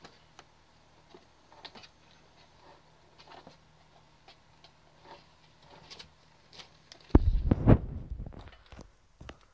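Light scratches and taps of a kitten's paws and claws as it bats at a hand, then, about seven seconds in, a loud burst of bumps and rustling lasting under two seconds.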